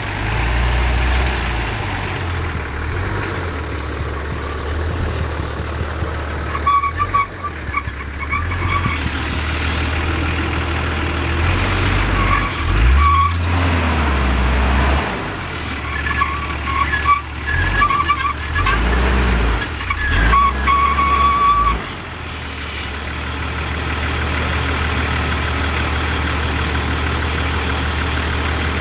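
Nissan Patrol off-roader running slowly, its engine a low steady drone with a few short revs, while the vehicle creaks with high-pitched squeaks several times, around a third of the way in and again past the middle.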